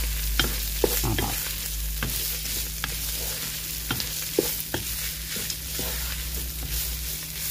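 Minced lamb with onion sizzling in a pot while a spoon stirs it, the spoon scraping and knocking against the pot every second or so.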